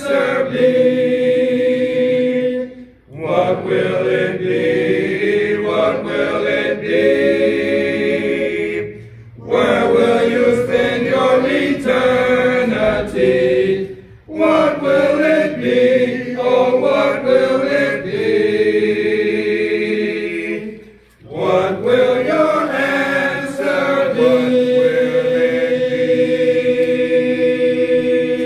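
Congregation singing a hymn a cappella, voices only. The song moves in phrases of long held chords, with a short break for breath about every five or six seconds.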